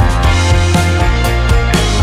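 Background music with a steady beat: drum hits about twice a second over sustained bass notes.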